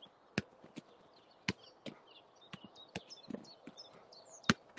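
A football being kicked and touched back and forth in a passing drill: a string of sharp, irregular knocks, the loudest about four and a half seconds in.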